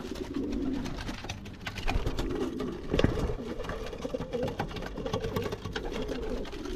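Domestic racing pigeons cooing, with scattered clicks and taps and one louder knock about three seconds in.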